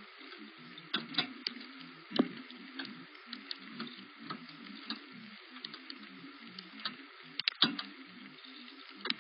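Rain dripping onto a nearby surface: scattered, irregular sharp ticks of single drops over a faint steady hiss, with a louder drop about two seconds in and a cluster about seven and a half seconds in.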